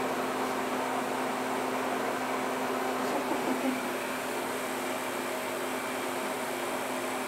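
Harvest Right home freeze dryer running partway through its drying cycle: a steady mechanical hum with a few held low tones.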